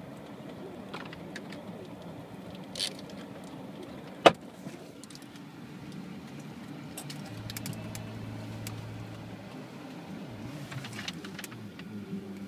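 Steady low hum of a car cabin, with one sharp click about four seconds in and a few softer clicks and rustles around it.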